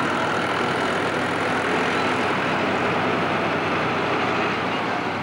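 Tractor diesel engines running steadily and loudly at a tractor pull's start line, a dense even noise over a low hum. The sound begins to fade right at the end.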